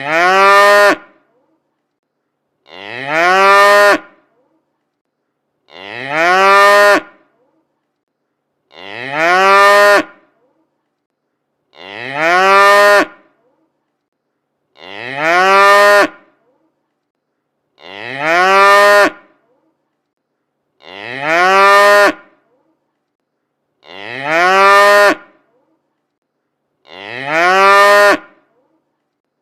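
A cow mooing: the same short moo, about a second long, sounds again about every three seconds with silence between, each call starting higher and dropping a little at the end.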